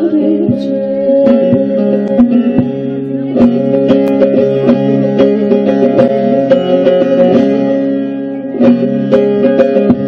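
Bağlama (Turkish long-necked saz) played solo with a plectrum: quick runs of plucked notes over steadily ringing drone strings, an instrumental passage with no singing. The playing eases briefly about eight seconds in, then resumes.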